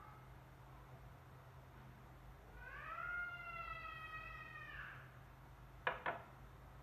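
A domestic cat gives one long meow lasting about two and a half seconds, its pitch rising at first and then holding. Near the end come two sharp knocks in quick succession on the pan as the rice powder is tipped in.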